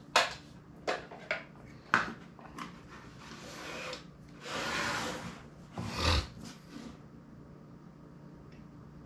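Handling of a precision screwdriver set in a clear plastic case on a tabletop: light clicks and knocks in the first two seconds, two longer rustling scrapes in the middle, and a single knock about six seconds in.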